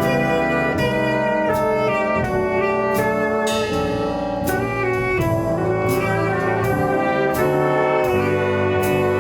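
A band playing music led by brass instruments, with held and moving horn notes over a steady drum and cymbal beat.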